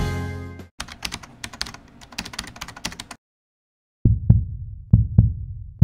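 Background music cutting off, then a run of rapid sharp clicks like typing on a keyboard for about two seconds. After a short silence come deep thumps every half second or so, the sound effects of an animated logo appearing.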